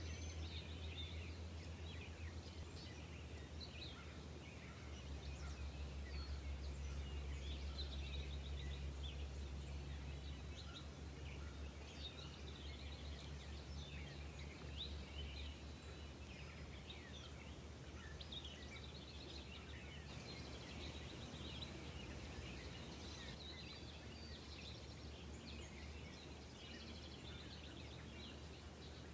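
Outdoor ambience of small birds chirping on and off throughout, over a steady low rumble that swells slightly for a few seconds near the middle.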